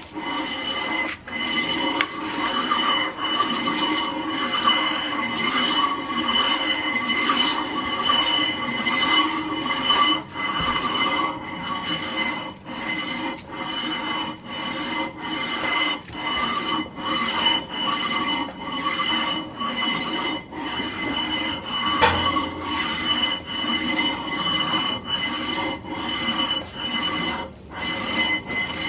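Coarse 80-grit sandpaper on a heavy flat steel bar rasping back and forth across the aluminium deck face of a Toyota 2JZ cylinder head, about one stroke a second. The head is being lapped flat by hand to take out low spots and scrape off old head-gasket residue.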